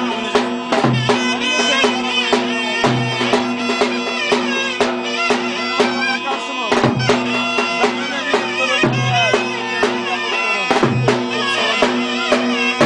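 Clarinet playing a fast, ornamented Turkish folk dance tune, over a steady droning accompaniment and a recurring low bass beat.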